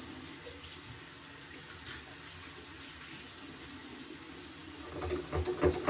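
Water running steadily from a tap into a sink, with a short click about two seconds in and some louder knocks and handling near the end.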